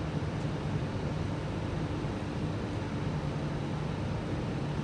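Steady hum and hiss of an Alstom Metropolis C830C metro train standing at a platform with its doors open, its onboard equipment running while the train waits to depart.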